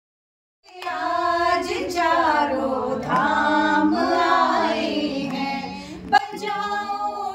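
A small group, mostly women's voices, singing a devotional bhajan to Ram together, starting about a second in. There is a brief knock shortly before the end.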